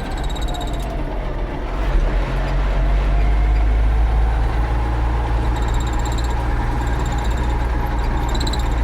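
Ford 9700 tractor's six-cylinder diesel engine running on the road. Its low, steady drone grows louder about two seconds in as it pulls harder.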